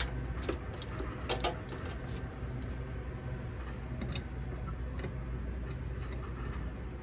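Scattered small clicks and taps from hands working on a flood light fixture overhead, most of them bunched in the first second and a half and a few more around four and five seconds in, over a steady low rumble.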